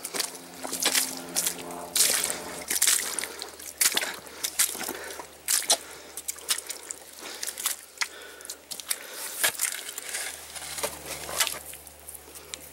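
Irregular wet squelching and splashing of footsteps in soft, waterlogged glacial marine clay and mud, with many short sharp slaps and sucks.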